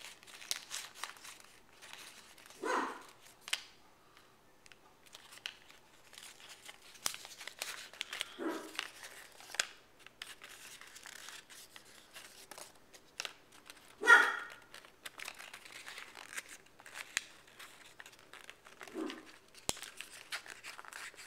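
Folded paper crinkling and rustling with many small clicks as fingers open the pockets of an origami plate's flaps. Over it come four short pitched calls several seconds apart, the third the loudest.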